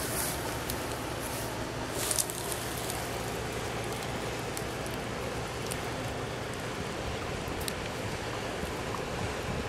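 Steady low drone of a passing motor barge's diesel engine, heard from across the river under a constant hiss of wind on the microphone, with a few faint clicks.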